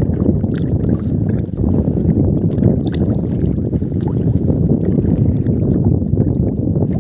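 Wind rushing over the microphone, with choppy water lapping against a small boat.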